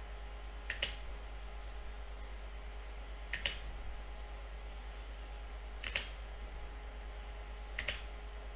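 Computer mouse button clicked four times, each a quick press-and-release double click, about every two to two and a half seconds, picking points for lines in AutoCAD. Under it runs a faint steady hum with a pulsing high tone.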